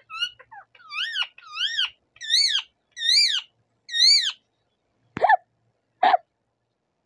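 Caged rose-ringed parakeet calling: a few short chattering notes, then five repeated calls that rise and fall in pitch, about three-quarters of a second apart, followed by two short harsh squawks.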